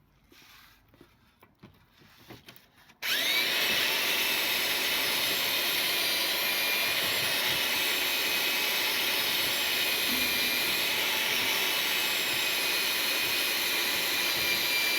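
A motor-driven tool starts abruptly about three seconds in and runs steadily and loudly, with a hissing whir and a high, constant whine.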